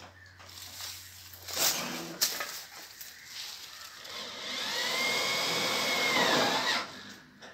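Roof work on corrugated metal sheets: two sharp knocks, then a loud machine whine lasting about two seconds that rises and then falls in pitch, as a power tool works on the roofing.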